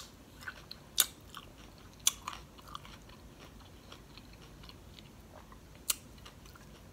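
A mouthful of food chewed close to the microphone, with sharp crunches at the start, about a second in, around two seconds in and again near the end, and small wet mouth clicks between them.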